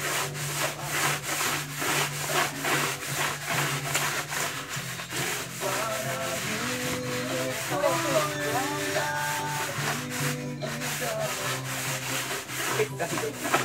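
Coconut-husk floor polisher (bunot) pushed back and forth under a bare foot, scraping over the floor in rapid repeated strokes, with music playing underneath.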